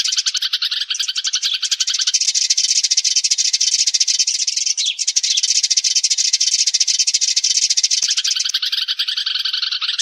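A flock of sparrows chattering, with many fast overlapping chirps in a dense, unbroken chorus: a sparrow flock call. The lower part of the chirping drops away about two seconds in and comes back near the end.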